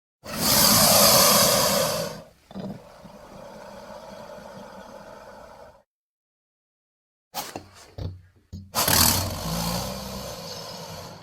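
Alligator or crocodile sound effects: a loud, harsh, hissing roar lasting about two seconds, trailing into a quieter rasp. After a pause come a few short clicks and a second loud hissing roar that fades out.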